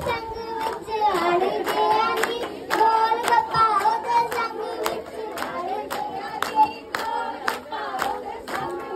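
A group of women singing a Punjabi folk song together, with steady hand-clapping in time, about two to three claps a second.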